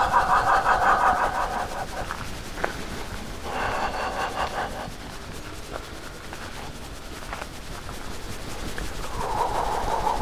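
A man's relaxing sighs of a qigong breathing exercise: three long breathy exhalations with a rapid flutter, the first about two seconds long at the start, a shorter one about three and a half seconds in, and another near the end.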